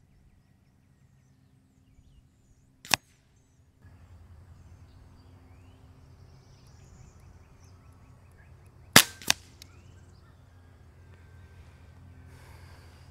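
Two shots from a .22 Benjamin Marauder semi-automatic PCP air rifle with a shrouded barrel: one sharp crack about three seconds in, and another about nine seconds in, followed a third of a second later by a second, quieter crack.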